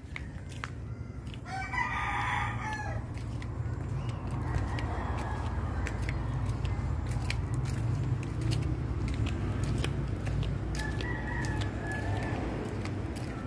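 A loud drawn-out animal call, about a second long, about two seconds in, and a fainter call near the end, over a low steady rumble and scattered light clicks.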